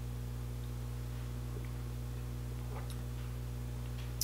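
Quiet room tone: a steady low hum with a few faint, brief small noises and a short click at the very end.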